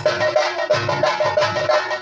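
Theyyam ritual percussion: drums and small metal cymbals playing a fast, dense rhythm, with a steady ringing tone over the beats.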